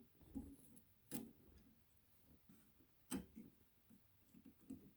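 Faint handling of a battery pack's cover being fitted: two sharp clicks, about a second in and about three seconds in, with light rustles and taps between them.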